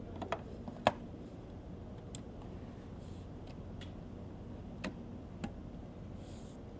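Sharp clicks and taps of a hand screwdriver and the access cover on a ScanEagle drone's fuselage as the hatch is closed and screwed down. There is a quick cluster of clicks in the first second, the loudest just before one second in, then two more about five seconds in.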